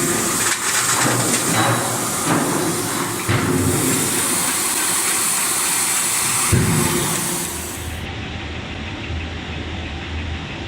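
Hydraulic closed-die forging hammer working on excavator track chain links: a few sharp heavy blows about three seconds apart over a loud hiss. After about eight seconds the hiss drops away, leaving a steady low machine hum.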